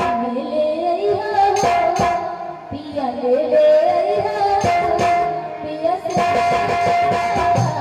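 Bhojpuri song music: a gliding, ornamented melody line over held notes, with occasional drum strikes.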